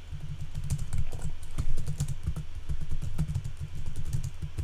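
Typing on a computer keyboard: a quick, uneven run of key clicks.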